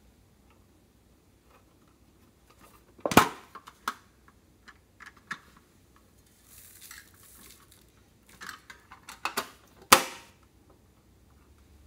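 Metal tin pencil case being handled: sharp metallic clacks of its lid and tin body, the two loudest about three seconds in and near the end, with lighter taps between and a brief soft rustle about halfway.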